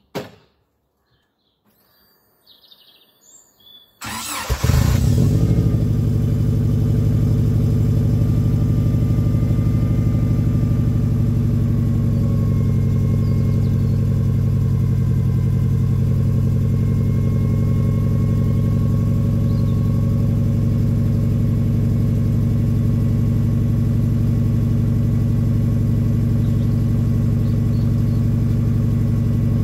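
1992 Subaru Legacy RS (BC5) turbocharged flat-four cold-starting through a decat 3-inch downpipe and 2.5-inch centre and rear sections with a Raptor back box: a brief crank about four seconds in, catching at once, then a steady idle at the tailpipe.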